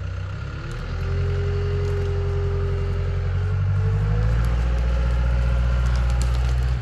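CAT 252B skid steer's diesel engine revving up and working hard under load as the machine pushes against a small tree, with a hydraulic-type whine that climbs in pitch about four seconds in. The engine note drops off suddenly near the end.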